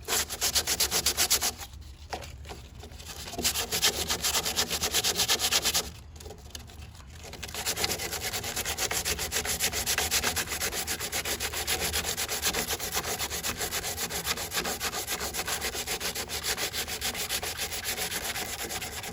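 80-grit sandpaper worked by hand, without a sanding block, over cured Bondo body filler on a car body panel, knocking the built-up filler down. It goes in rapid back-and-forth strokes, with two brief pauses in the first several seconds, then a long steady run.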